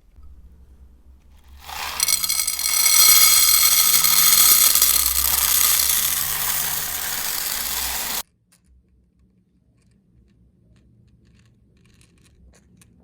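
Small grinder motor running with a loud, steady high whine full of overtones, starting about two seconds in and cutting off abruptly about six seconds later, followed by a few faint clicks.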